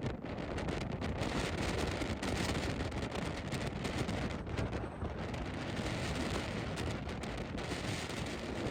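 Strong mountain wind buffeting the microphone: a continuous low rush of noise that swells and eases in gusts.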